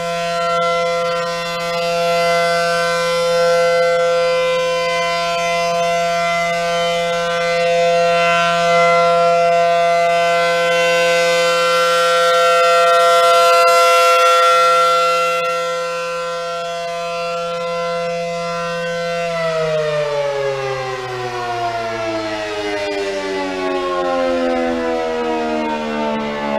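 ACA Allertor-125 electromechanical outdoor warning siren sounding its steady alert chord, swelling and fading in loudness every few seconds. About nineteen seconds in it shuts off at the end of its one-minute test alert, and the chord winds down, falling steadily in pitch.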